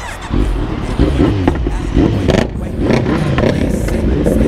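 Several sport motorcycles with loud aftermarket exhausts revving and pulling away together, the engine notes rising and falling with the throttle. Among them is a BMW S1000RR on a full, de-catted SC-Project exhaust system, which the riders call very loud.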